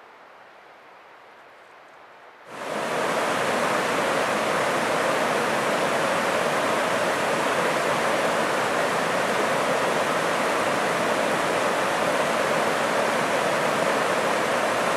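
River rushing over rocks in shallow rapids, a loud steady roar of water that starts abruptly about two and a half seconds in, after faint woodland quiet.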